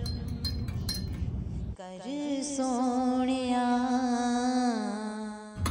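A teaspoon clinks lightly against a porcelain teacup as tea is stirred. About two seconds in, the room sound cuts off and music starts with one long held note.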